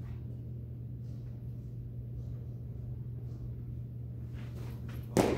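Steady low hum, then about five seconds in a single sharp impact of a baseball bat hitting a ball on a swing.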